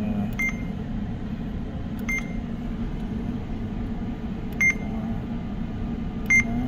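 Short beeps from a JRC marine radar display as digits are clicked on its bearing-adjustment keypad, four in all, the last two the loudest. A steady low hum runs underneath.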